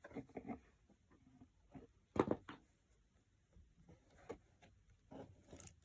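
Light taps and rustles of cardboard and a hot glue gun being handled during gluing, with one sharper knock about two seconds in.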